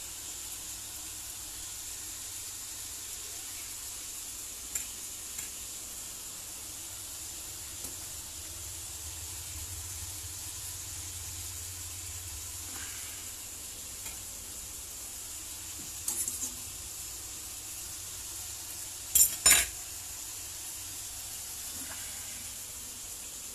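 Pork cooking on a gas stove with a steady sizzling hiss, with a few light clicks, a short rattle about two-thirds in, and two loud metal clanks of pot or utensils near the end.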